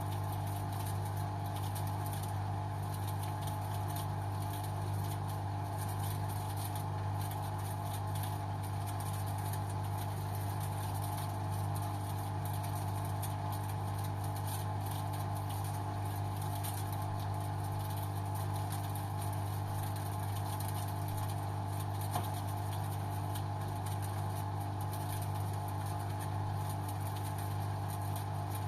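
LG washing machine running on its synthetic programme, a steady, even hum with no change in pitch or level.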